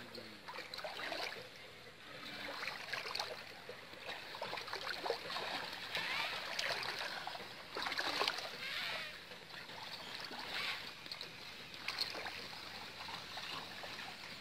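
Water splashing and sloshing unevenly as a fine mosquito net is hauled through a shallow pond and a person wades in the water.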